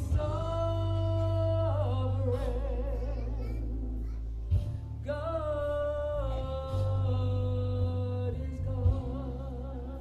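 A woman singing solo into a microphone, holding long notes with vibrato in two long phrases, over an accompaniment of sustained low bass notes.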